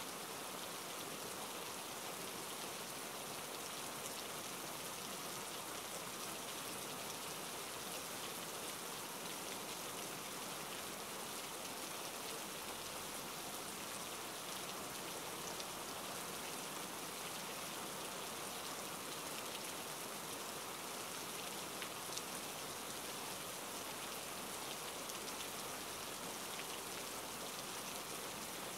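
Steady rain: an even hiss with faint scattered drop ticks.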